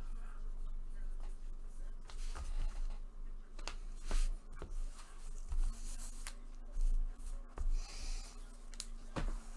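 Trading cards and their packaging being handled: scattered rustles and light clicks, some louder ones a few seconds in.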